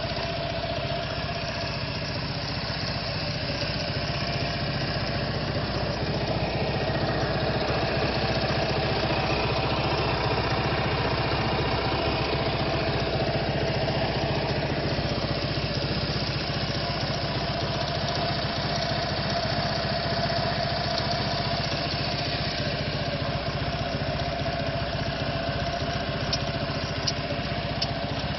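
Quadro 350D three-wheeled scooter's engine idling steadily, with a few light ticks near the end.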